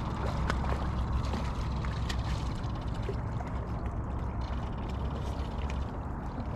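A steady low rumble that cuts off suddenly about six seconds in, under light water sounds and scattered sharp clicks, while a hooked fish is reeled in at the side of a fishing boat.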